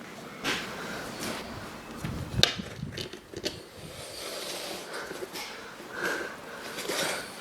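Metal tyre levers knocking and scraping against a dirt-bike wheel rim and tyre while the tyre is being prised off: a few sharp knocks, the loudest about two seconds in, then scraping and rustling.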